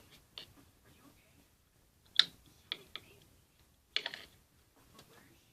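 A few sharp clicks and taps of small objects being handled while a new paint colour is picked out, the loudest about two seconds in and a small cluster of them about four seconds in.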